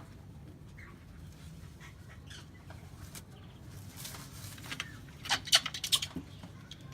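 A tame hornbill stirring: a quick run of sharp clattering strokes about five seconds in, over a faint low hum.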